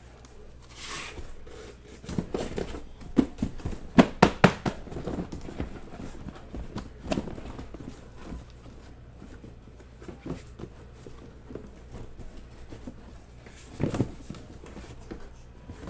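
Cardboard master case being opened and the sealed hobby boxes inside being handled: cardboard rustling and scraping, with a cluster of sharp knocks about four seconds in and a dull thump near the end.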